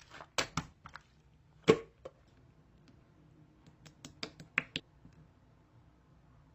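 A series of sharp clicks and taps: a few in the first two seconds, the loudest just under two seconds in, then a quick run of about half a dozen between four and five seconds.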